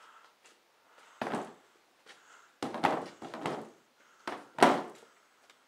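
A pole knocking up against ceiling boards and wooden joists overhead: about six dull thunks at an uneven pace, the loudest ones in the second half.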